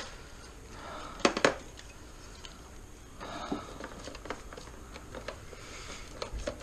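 Handling of a car wiring harness being pushed through its rubber grommet and pulled out: soft rustling with scattered clicks of plastic connectors, two sharp clicks close together about a second in.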